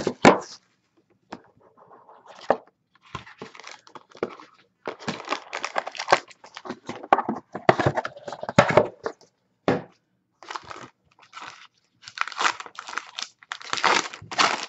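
Wrappers on a box of basketball trading cards being torn open and crinkled by hand: plastic wrap and a foil box-topper pack. The rustling and tearing come in irregular bursts with short pauses.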